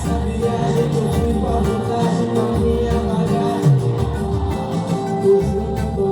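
Pagode music with a cavaquinho playing chords over bass and percussion, the low beat falling about once a second.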